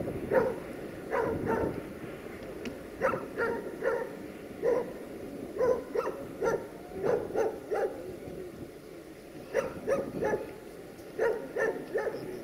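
A dog barking repeatedly in quick groups of two or three barks, over the low rumble of freight wagons rolling slowly past.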